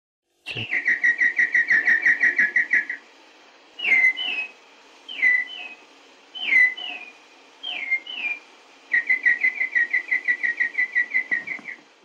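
A person whistling an imitation of the extinct piopio's song, from a 1952 recording with steady hiss underneath. It opens with a fast run of short whistled notes, about seven a second. Then come four or five separate two-part calls, each a sharp downward slur followed by a short note, about a second and a half apart. Near the end a second fast run follows.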